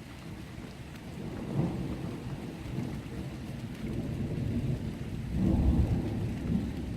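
Thunder rumbling long and low during a thunderstorm, building from quiet, swelling about a second and a half in and rolling loudest near the end, with rain falling.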